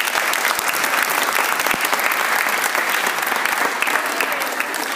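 Audience applauding: a dense, steady patter of many people clapping, loud throughout.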